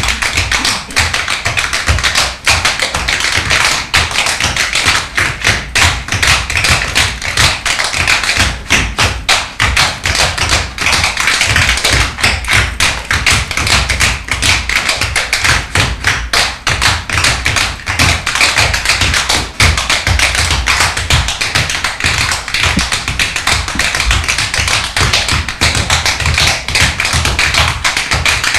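Tap dancers' shoes striking the stage floor in fast, dense rhythms, several dancers tapping together with no letup.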